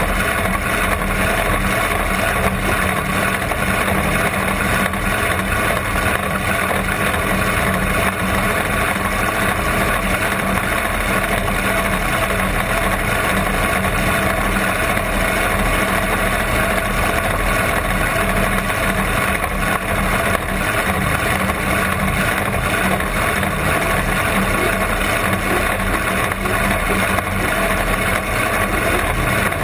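Supercharged big-block Chevrolet V8 of a blown alcohol rear-engine dragster idling steadily, heard up close from the cockpit just behind the blower.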